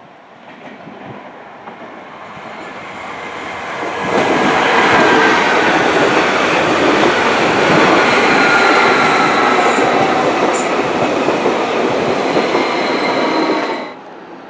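Stadler FLIRT electric multiple unit approaching and passing close at speed: a rush of wheels on rails that grows for a few seconds and is loud from about four seconds in, with faint high whines sliding slowly downward. The sound drops off abruptly near the end.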